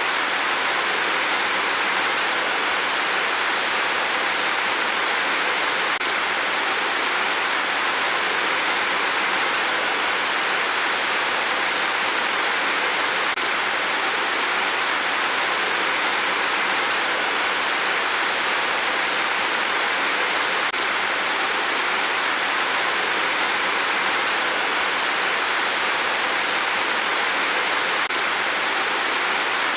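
Steady rain, an even unbroken hiss with no single drops or gusts standing out.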